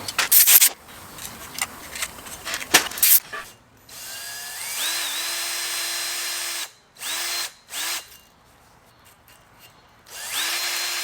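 A handheld electric power tool's motor spinning up to a steady speed and running, stopped and restarted several times with short trigger blips between runs. Sharp knocks and clatter of parts being handled come first.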